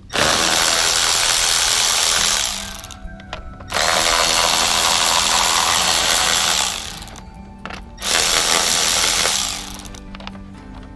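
Three loud hissing bursts from a workshop power or air tool, lasting about two, three and one and a half seconds.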